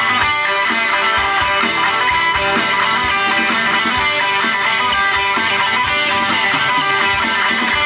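Live rock music, loud and steady: an electric guitar played through an amplifier, with a regular beat underneath.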